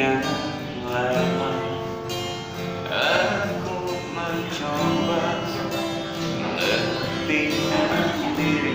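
Acoustic guitar strummed as accompaniment to a man singing a slow pop ballad.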